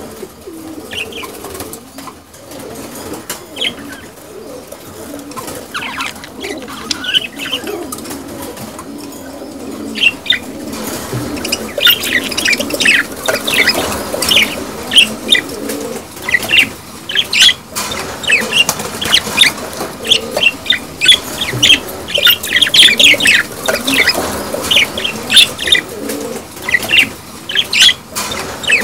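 Several budgerigars chattering and warbling, with many quick high chirps over a lower burbling warble; the chatter grows louder and busier about ten seconds in. This is the courtship chatter of budgies in breeding condition.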